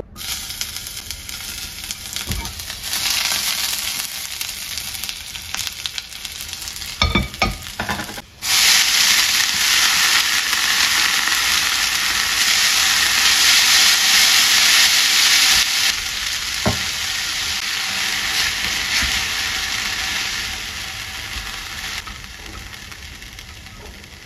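Sliced onion sizzling in hot oil in a stainless-steel frying pan, with a few low knocks against the pan about seven seconds in. After a break about eight seconds in comes a louder, steady sizzle as noodles are stir-fried in the pan, fading toward the end.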